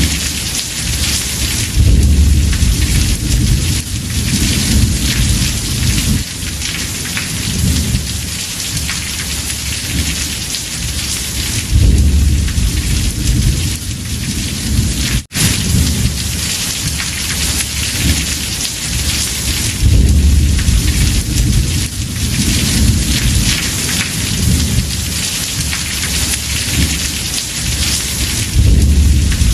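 Heavy rain drumming on a house roof, with thunder rolling low under it in rumbles that swell about every eight to ten seconds. The sound drops out for an instant about halfway through.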